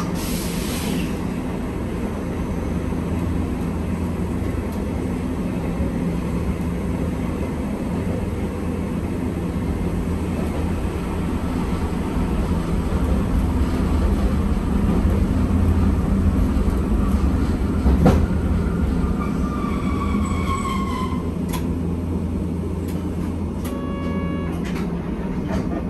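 Hankai Tramway streetcar running, heard from inside the car: a steady low rumble of motors and wheels on the rails. There is a sharp clack about eighteen seconds in, then a falling whine, and a short ringing tone near the end.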